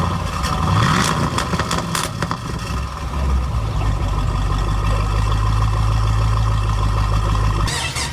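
Car engine running, with a short rise in revs about a second in, then a steady low drone. A few sharp clicks are heard around one to two seconds in.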